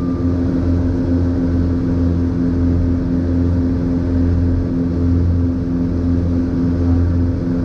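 Twin piston engines and propellers of a light twin aircraft running steadily, heard inside the cabin, with the low drone swelling and fading in a slow beat a little faster than once a second. The uploader puts this down to slipping propellers.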